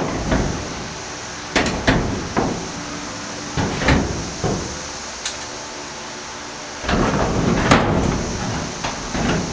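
Old iron blacksmith tongs clinking and clanking against a rebar wall rack and each other as they are hung on it one by one: several separate sharp metal knocks, with a busier, louder cluster near the end.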